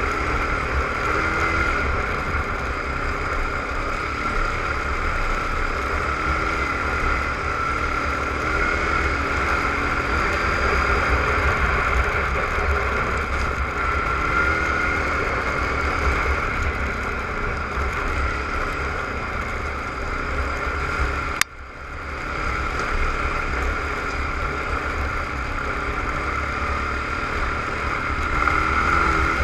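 Suzuki ATV engine running steadily while riding a dirt trail, with a low rumble of wind and trail noise on the microphone. About two-thirds of the way through there is a single sharp click and a brief dip in the sound.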